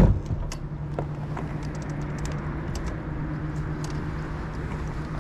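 Bass boat's outboard motor idling with a steady low hum, with a few faint clicks and taps over it.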